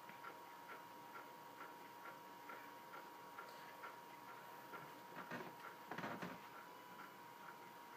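Faint, even ticking, a little over two ticks a second, over a faint steady high hum. A brief louder rustle comes about five seconds in and again about six seconds in.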